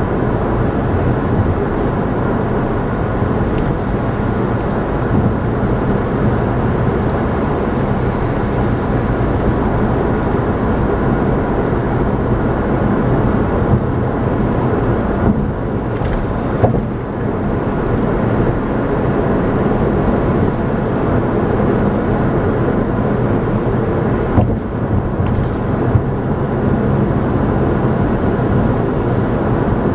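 Steady road and engine noise of a car cruising at highway speed, heard from inside the cabin, with two brief clicks partway through.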